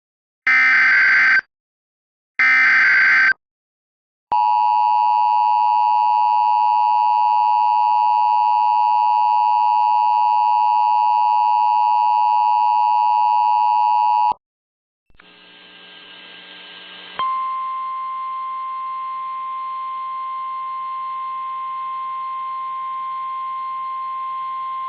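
Emergency Alert System broadcast tones. First come the last two of three one-second warbling SAME data header bursts. After a short gap, the loud two-tone EAS attention signal holds steady for about ten seconds and cuts off. After a brief rise of hiss, a quieter single steady tone near 1 kHz sounds over hiss.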